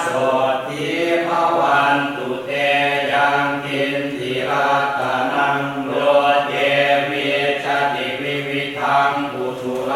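Buddhist monks chanting Pali verses in unison, a steady rhythmic recitation on a near-constant low pitch.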